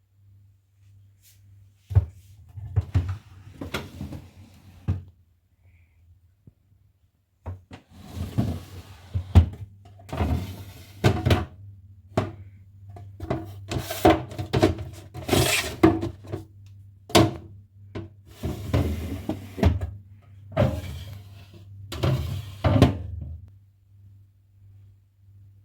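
Irregular knocks, thunks and clatter of household objects being handled and set down, in clusters with short quiet gaps between.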